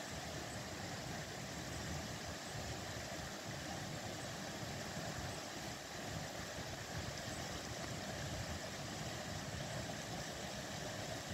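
A shallow stream running over stones, a steady rushing, with an uneven low rumble underneath.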